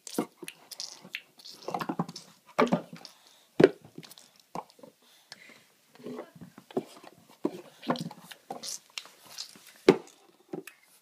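A toddler making mouth noises: irregular clicks, smacks and short breathy vocal sounds, with no words. The uploader thinks he may be doing it to ease the pain of a molar coming in.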